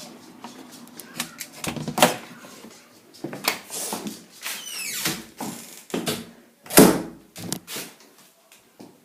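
A string of irregular clicks and knocks with short rustling stretches, the loudest knock a little before seven seconds in, and a brief high falling squeak about five seconds in.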